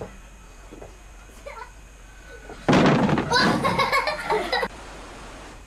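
A plastic toy basketball hoop crashes over about three seconds in, and a small boy at once gives a loud, excited shout that lasts a second or two.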